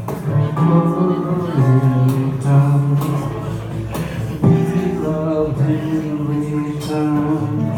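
Live music: guitar playing an instrumental passage of a slow ballad, held notes changing every half second or so.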